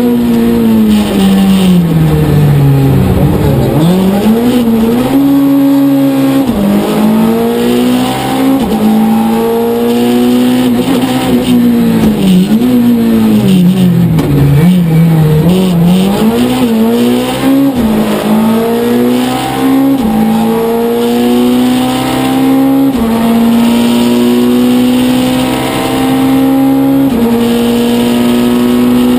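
Citroën C2 Max rally car's four-cylinder engine at full effort through the gears, heard from inside the cabin. The revs fall away as it slows for corners and climb again, with sudden drops at each upshift and steadier high revs near the end.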